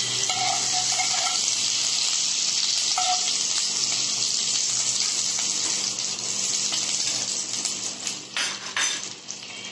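Butter melting and sizzling in hot oil in a kadai: a steady hiss that eases off near the end, with a few sharp crackles.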